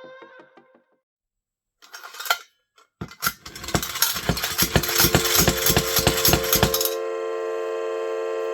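Tin humming spinning top: a short metallic clatter as it is handled, then fast clicking that speeds up as its plunger is pumped. About seven seconds in, the clicking gives way to the top spinning freely with a steady hum of several tones at once.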